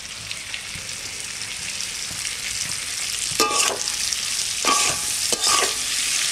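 Boiled amla (Indian gooseberry) pieces and ground spices frying in mustard oil in a metal karahi, with a steady sizzle that grows louder. In the second half a metal spatula stirs and scrapes against the pan four times, each scrape briefly ringing.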